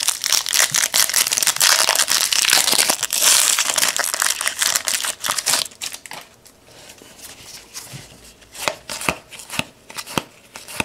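A trading-card pack wrapper being torn open and crinkled, a dense crackling for about the first six seconds, then giving way to scattered softer taps and rustles.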